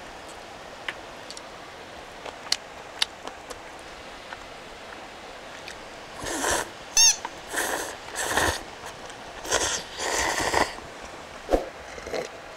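A person slurping instant ramen noodles: a few light clicks at first, then several loud slurps in quick succession from about halfway through, one with a brief squeak, followed by a couple of small knocks.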